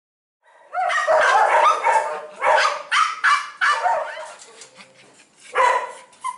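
Dogs barking and yipping in quick, high-pitched volleys, with a short lull shortly before the end and then a few more barks.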